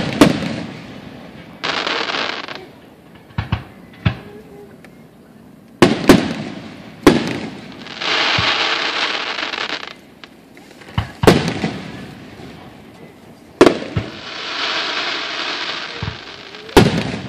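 Aerial firework shells exploding in a display: about a dozen sharp booms, several in quick pairs. Between them come stretches of steady hiss lasting a couple of seconds.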